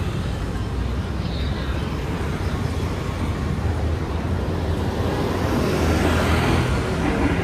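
Street traffic: a steady low rumble of motor vehicles, growing louder about five seconds in as a vehicle passes close.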